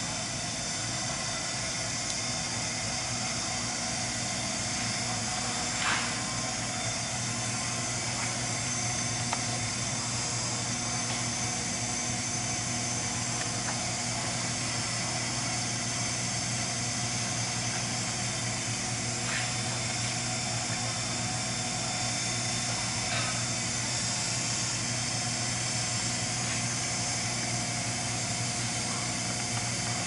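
Vitronics GP-103 conveyor furnace running with its heated zones open: a steady hiss with a low hum from the machine, broken by a few faint clicks.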